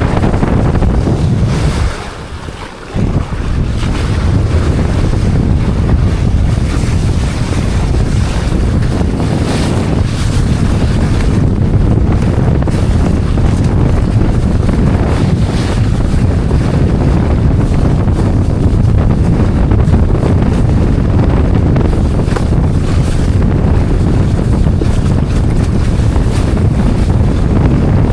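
Heavy wind buffeting the microphone, with rushing water beneath it. The rumble drops away briefly about two seconds in, then comes back.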